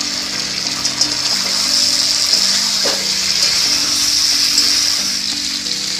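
Baby potatoes frying in oil with spice masala and tomato purée: a steady sizzle while a spatula stirs through the pan, with a scrape about three seconds in. Soft background music runs underneath.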